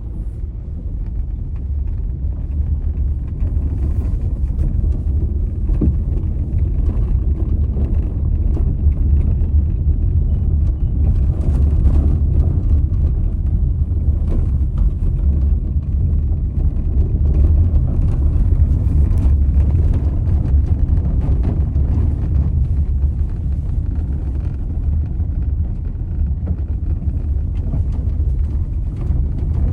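2017 Honda Civic on the move, a steady low road-and-chassis rumble with a few faint knocks scattered through it.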